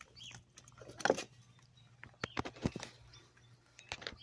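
Hens pecking at food scraps on concrete: irregular sharp taps and clicks of beaks striking the ground and the food, the loudest cluster about a second in. A faint short chicken chirp is heard near the start and again at the end.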